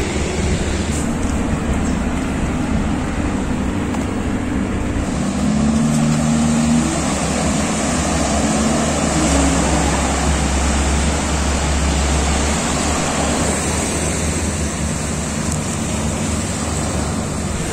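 A boat engine running steadily at a distance, its pitch shifting a few seconds in, over a constant rush of wind and surf.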